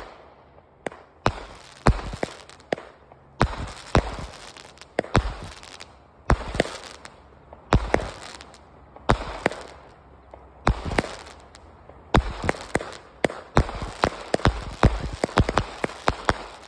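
A 100-shot firework cake firing shot after shot: sharp bangs come in quick, uneven succession, about one to two a second, and each fades out before the next.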